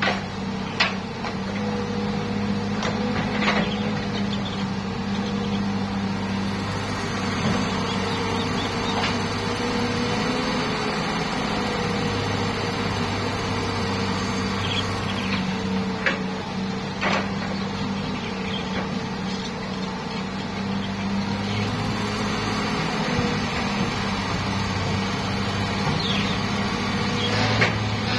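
Hitachi hydraulic excavator's diesel engine running steadily while it digs soil and loads a dump truck, with a few short sharp knocks scattered through.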